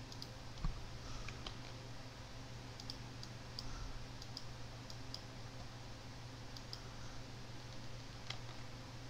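Scattered light clicks of computer input, mouse and keys, about a dozen spread irregularly over a steady low hum.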